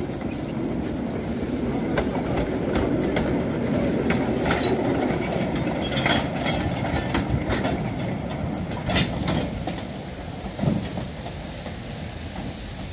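1928 Orenstein & Koppel narrow-gauge steam locomotive running slowly past, with a rumble and many irregular clicks and rattles from its wheels and motion on the track, growing quieter over the last few seconds as it moves away.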